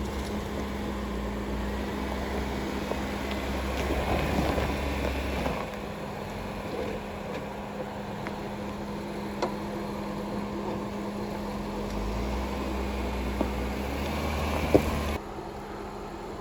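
Off-road vehicle engine running steadily at low speed while crawling over trail terrain. The low rumble rises and falls, with a few sharp knocks from the chassis. The sound changes abruptly near the end.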